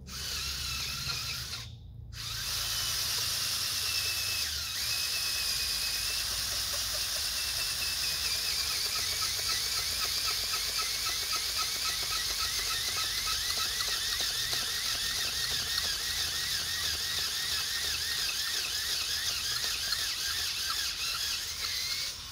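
Cordless drill turning a K-Brands multi-purpose auger bit down into hard, dry dirt: the motor whines under load with a wavering pitch. It stops briefly about two seconds in, then runs on without a break. The bit is barely cutting into the ground.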